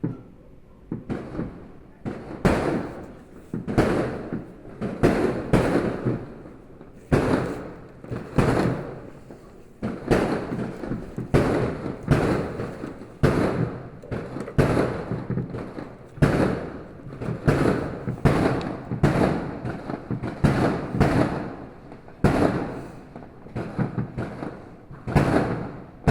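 Fireworks going off in a rapid barrage: sharp bangs about one to two a second, each trailing off in an echoing rumble.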